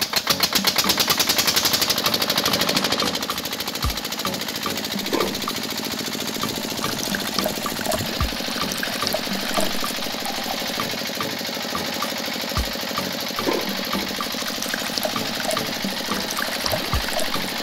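A small motor in a miniature engine model is running with a fast, steady rattle, belt-driving a toy grinder. Liquid trickles from the grinder's chute into a plastic cup.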